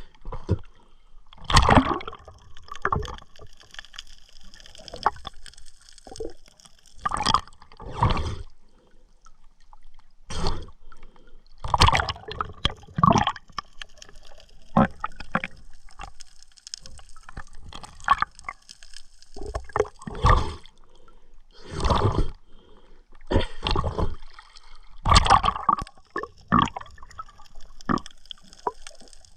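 Water gurgling and sloshing around an underwater camera, in short irregular bursts every second or two.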